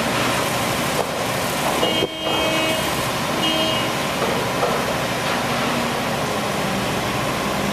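Concrete pump truck running steadily during a concrete pour. Two short beeps sound, one about two seconds in and a shorter one about three and a half seconds in.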